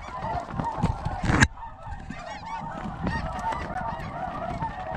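A flock of snow geese calling, many high, yelping honks overlapping continuously. A single loud burst of noise cuts through about a second and a half in.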